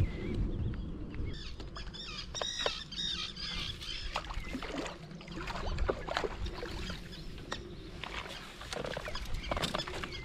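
A hooked carp splashing and thrashing at the water surface as it is played in close and drawn into a landing net, with water sloshing around the net. A small bird sings a quick warbling phrase about a second in.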